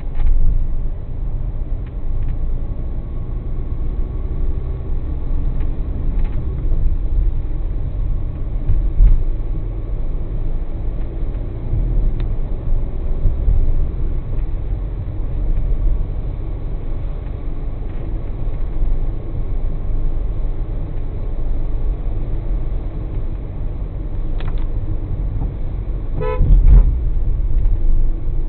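Steady low rumble of a Kia Carens driving on a wet road, heard from inside the car. A car horn toots briefly near the end.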